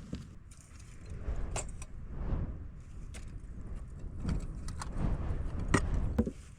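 Gusting wind rumbling on the microphone, with a few sharp clicks and knocks scattered through it, the loudest two near the end.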